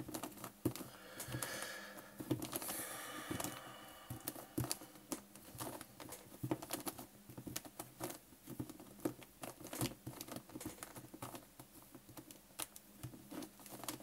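Plastic Shuang Fei Yan twisty puzzle being turned by hand: its pieces click and rattle in quick, irregular clicks as the faces are twisted, with a short squeaky scrape of sliding plastic from about one to four seconds in.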